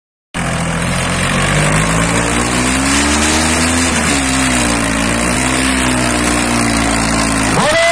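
Tractor diesel engine revving hard under load during a wheelie stunt, its pitch rising and falling. It cuts off abruptly just before the end.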